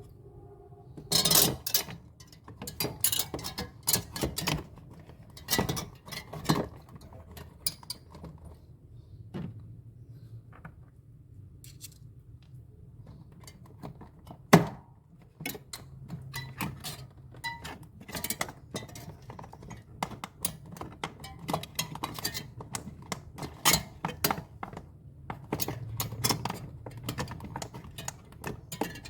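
Irregular clicks, knocks and metallic clinks of hand tools and parts being handled during refrigerator repair work, with one sharper knock about halfway through.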